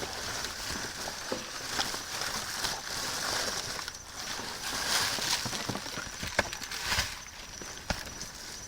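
Rummaging through dumpster trash: a steady rustle and crinkle of plastic bags and packaging, with scattered clicks and a few sharper knocks as items are shifted.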